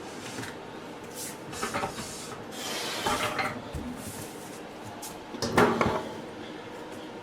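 A clamp being fitted onto a wooden drawer front and the drawer parts being handled: a few knocks and clicks, a rubbing scrape about three seconds in, and the loudest clatter a little after five seconds.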